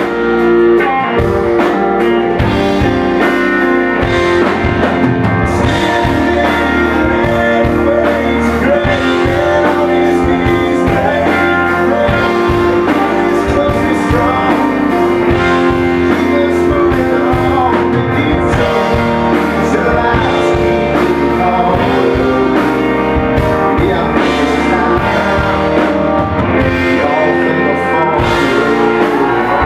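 A country band playing live: acoustic and electric guitars, electric bass and drums, with a man singing lead over them.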